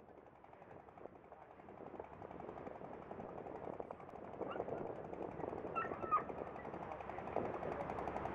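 Outdoor ambience fading in steadily: a dense crackling background with a few faint high chirps around the middle.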